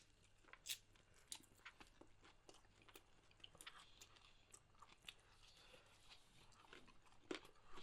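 Faint chewing and crunching of food in the mouth, irregular crackles and clicks, a little louder near the start and again near the end.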